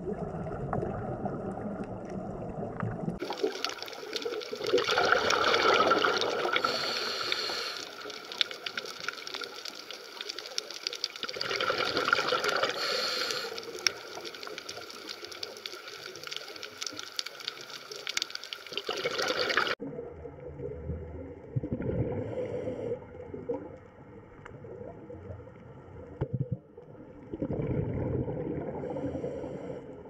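Water noise and bubbling heard underwater, swelling and fading every six or seven seconds. The character of the sound changes abruptly about three seconds in and again about two-thirds of the way through.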